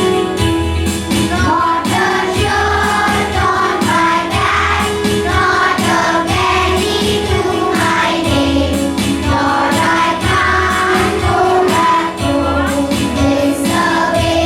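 A prayer song sung by a group of voices, children's and women's, over an instrumental accompaniment with a steady low pulse. The voices come in about a second and a half in.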